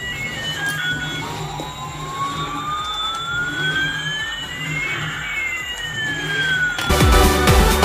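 Electronic background music building up: one long synth tone slowly rises while another slowly falls, the two crossing midway over a low hum. About seven seconds in, a loud dance beat drops in.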